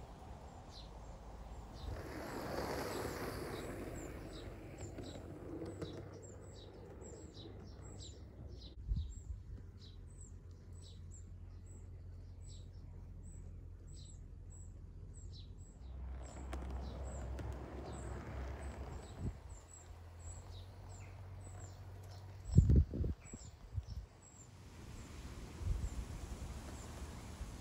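Garden birds chirping, short high calls repeating over a low steady rumble. A few heavy low thumps come about twenty-two seconds in.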